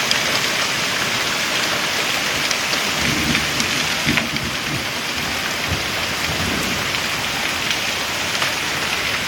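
Heavy rain falling steadily during a thunderstorm, with a low rumble of thunder from about three seconds in to about seven seconds.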